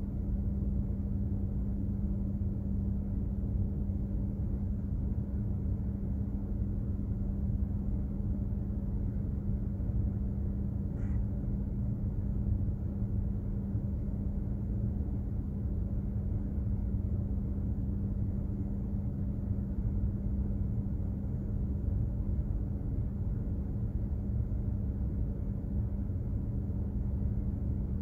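Container ship under way: a steady low rumble of its engines and machinery, with a constant droning hum.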